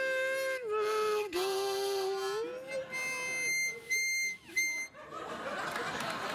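Improvised sung jingle, voices holding long drawn-out notes and sliding between pitches, ending in a few short high notes; studio audience applause starts about five seconds in.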